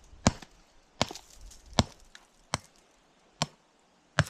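Hammer striking sandstone rock to break it up: six sharp, evenly paced blows about one every three-quarters of a second.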